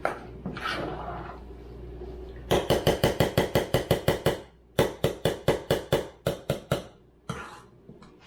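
A spoon knocking against a saucepan of oat flapjack mixture, in two fast runs of sharp clacks, about six a second.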